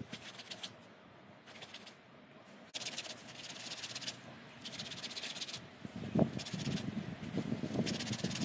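Cloth rubbing briskly over a carved antler needle case, a scratchy hiss that comes in several bursts of strokes with short pauses between, and one sharp click about three seconds in.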